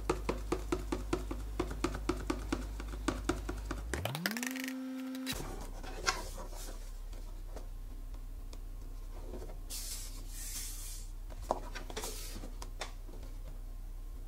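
A cardboard microphone box picked up and turned over on a wooden desk: soft scrapes, taps and a brief sliding rub about ten seconds in. Before it there is an even ticking, about four ticks a second, and then a rising tone that holds for about a second and stops.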